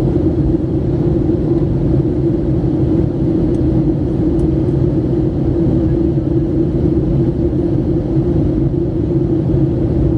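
Jet airliner cabin noise in flight: a steady, loud drone of engines and airflow, with a constant hum running through it.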